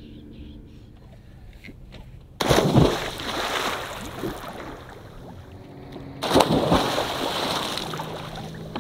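Two big splashes about four seconds apart, each followed by a couple of seconds of churning water: people jumping into the sea to cool off after the sauna.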